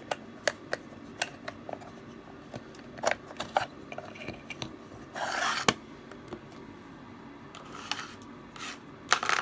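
Light clicks and knocks of a puzzle box and its sliding pieces being handled, with a short scraping rub about five seconds in and a quick cluster of clicks near the end.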